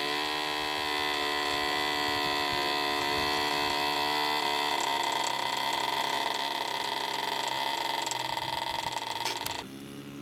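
Model airplane's engine buzzing steadily in flight, its pitch shifting about halfway through. The sound cuts off suddenly near the end.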